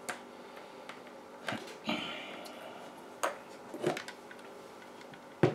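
Scattered light clicks and knocks of small hard parts and tools being handled on a workbench, about five or six in all, the loudest near the end.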